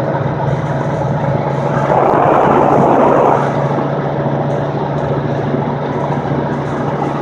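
Steady engine and road noise inside a moving vehicle's cabin. About two seconds in, a louder swell of noise lasts for about a second and a half.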